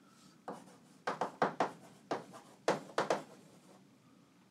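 Chalk writing on a blackboard: a series of short, sharp taps and strokes in quick clusters as a couple of words are written.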